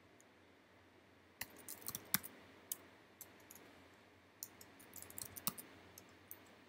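Keys tapped on a computer keyboard while typing a formula. A few keystrokes start about a second and a half in, then a quicker run of keystrokes comes from about four and a half seconds in.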